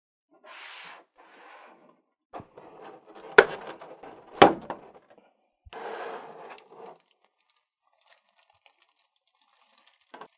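Clear plastic blister tray and plastic wrap handled as a figure is pulled out: rustling and crinkling, with two sharp plastic snaps about a second apart that are the loudest sounds, then a few light ticks.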